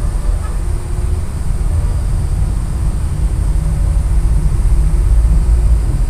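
Steady low rumble of a moving bus: engine and road noise.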